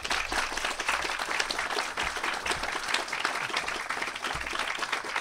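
Audience applauding: a dense, even clatter of many hands clapping.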